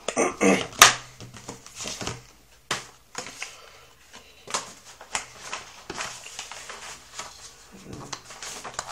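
Hands handling a plastic credit-card folding knife and its case: irregular clicks, taps and rustles, the sharpest click about a second in.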